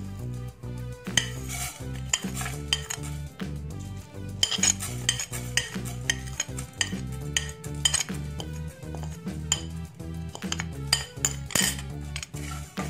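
A spatula stirring and scraping dry-roasting whole spices (coriander, fenugreek and cumin seeds) around a nonstick pan, the seeds rattling with each stroke in quick, irregular scrapes. Soft background music runs underneath.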